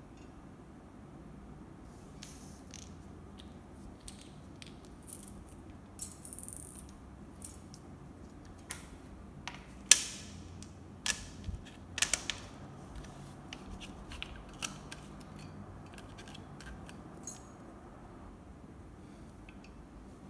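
Scattered clicks and knocks of a white metal-tube stool frame and its plastic seat and caps being handled and fitted together, with a short rustle about six seconds in and the loudest sharp knock about ten seconds in.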